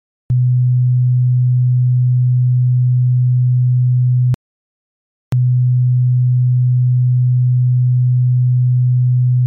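Low sine test tone, about 120 Hz, played in two runs of about four seconds each, with a click where it starts and stops and a gap of about a second near the middle. It is a harmonic-distortion listening test: the tone carries a tiny, stepped-down amount of total harmonic distortion, 0.005% and then 0.001%.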